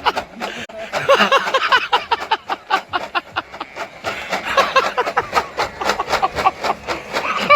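A person laughing hard and without pause, a quick run of short ha-ha syllables.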